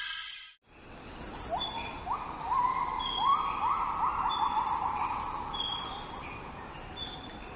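Tropical rainforest night chorus: a steady high insect drone with slower pulsing insects, short repeated notes, and a run of quick rising calls in the middle. It begins after a brief drop about half a second in.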